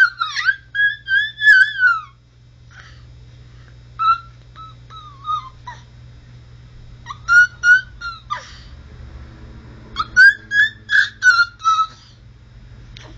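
A baby's high-pitched squealing babble, quick runs of repeated 'ta-ta-ta' syllables with pauses between the runs.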